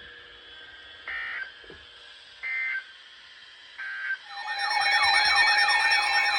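Emergency Alert System header: three short bursts of digital data tone about a second apart. About four seconds in, a louder warbling, sweeping siren-like alert tone begins over a steady tone.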